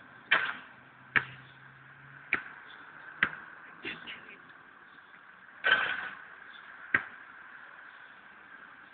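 Basketball hitting the hard court surface and the hoop: a series of single sharp thuds about a second apart, with one longer, ringing hit a little past halfway.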